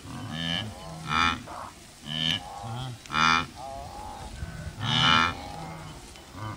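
A herd of wildebeest calling: a string of loud, deep lowing calls about one a second, over quieter overlapping calls from the rest of the herd.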